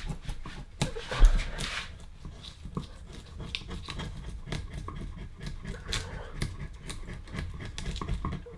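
A sharpened flathead screwdriver scraping and picking into a birch log in short, quick strokes: a dense run of small scratches and clicks, with a low bump about a second in.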